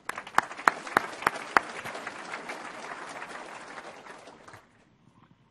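Audience applauding, with a few louder single claps standing out in the first two seconds; the applause dies away near the end.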